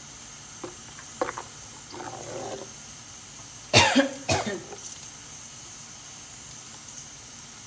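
A person coughing twice, about half a second apart, the loudest sounds here. Before that, a few light clicks of a steel ladle against a clay pot as the curry is stirred, over a steady low hiss.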